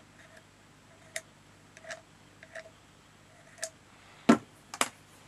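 Irregular light taps and clicks from handling card and papercraft pieces on a work surface. A louder knock comes a little past four seconds in, and a smaller one half a second later.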